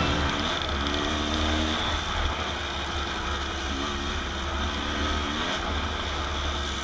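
The rider's own KTM 200 XC-W two-stroke dirt bike engine running along the trail, with wind noise. Its revs rise twice, about a second in and again about four seconds in.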